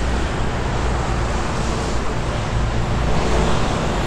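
Steady noise of road traffic, cars and vans passing on a multi-lane city road, with a constant low rumble.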